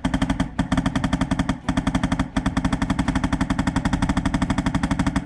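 HPA airsoft rifle with a Polarstar Jack engine firing long full-auto strings, a rapid even clatter of shots broken by two brief pauses.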